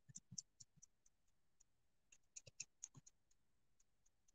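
Near silence with faint, irregular small clicks and taps from hands working painter's tape on a painted board.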